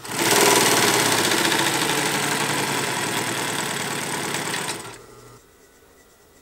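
Consew 225 industrial walking-foot sewing machine running steadily at speed, stitching a seam through a piece of rubber inner tube, then stopping about five seconds in.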